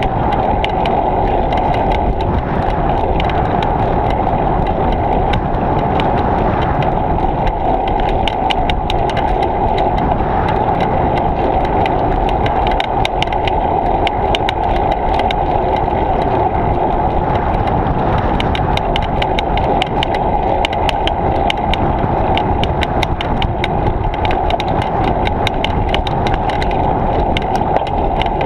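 Riding noise on a bicycle-mounted GoPro: a steady rush of wind and road rumble, with many small sharp clicks and rattles that come thickest from about a third of the way in.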